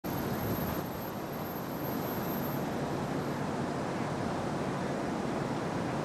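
Steady city street noise: an even, constant roar of distant traffic with no distinct events.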